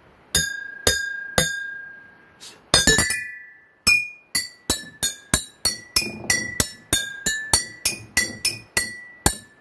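Metal spoon tapping water-filled glass jars, each strike ringing a clear note whose pitch is set by the water level in that jar. A few separate taps, a quick flurry, then a steady run of about two to three notes a second at changing pitches, played as a simple tune.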